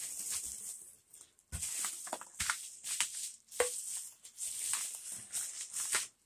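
Crinkling and rustling of packaging as a crumpled yellow paper mailer is handled and lifted out of a cardboard box, in a run of crackly bursts. A couple of soft knocks come about one and a half seconds in and again between three and four seconds in.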